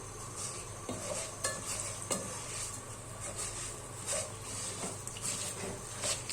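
A spoon stirring and scraping in a cooking pot, knocking a few times against the metal, over a steady sizzle of frying.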